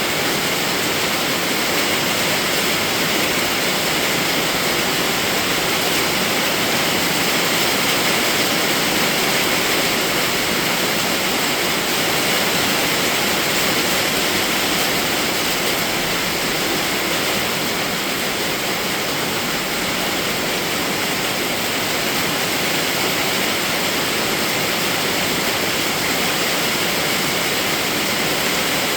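Steady, even rainfall, a constant hiss of falling rain with no separate drops or thunder standing out.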